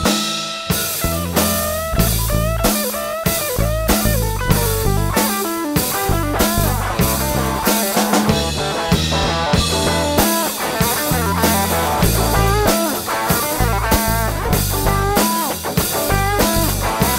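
Rock band playing an instrumental section: electric guitar lead with bending notes over bass and a drum kit keeping a steady beat.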